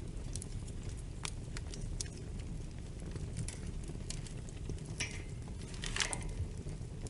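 Fire crackling in a fireplace: a steady low rumble with scattered sharp pops, and a denser flurry of crackles about five seconds in and again about six seconds in.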